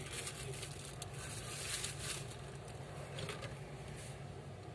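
Plastic packaging crinkling and rustling as it is handled, with a few light clicks, loudest in the first half, over a steady low background hum.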